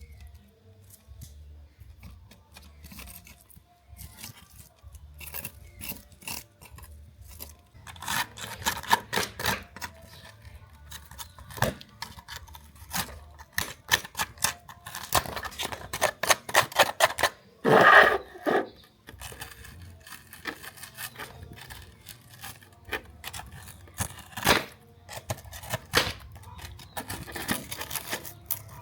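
Close-up clicks, taps and scrapes of a small die-cast toy car and its parts being handled and worked on during restoration, with a louder scraping rub about two-thirds of the way through.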